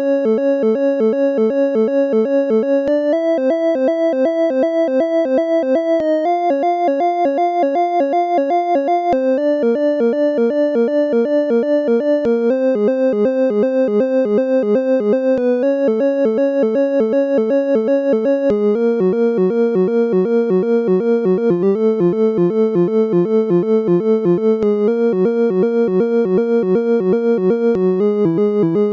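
Instrumental synthesizer music: a rapid, even pulse of repeated notes, the chord changing about every three seconds.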